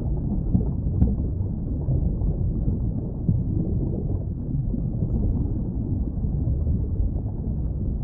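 Underwater ambience: a steady, muffled low rumble of moving water, with a short click about a second in.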